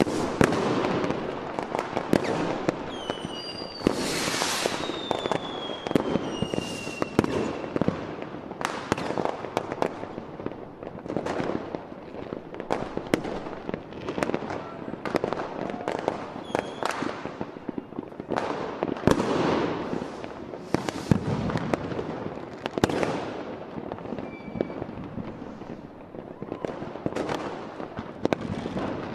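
Fireworks display: a continuous, irregular run of shell bursts and bangs. A few seconds in, several whistles fall in pitch from whistling fireworks.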